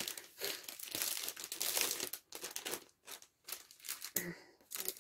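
Clear plastic packaging of a cross-stitch kit crinkling in irregular bursts as it is handled and opened.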